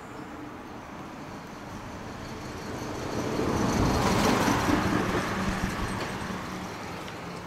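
A road vehicle driving past, its sound swelling to a peak about four seconds in and then fading away.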